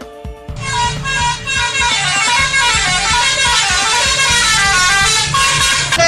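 A 'telolet' bus-horn tune: a multi-tone horn plays a fast melody whose notes step up and down in pitch, set over a steady beat. It comes in about half a second in.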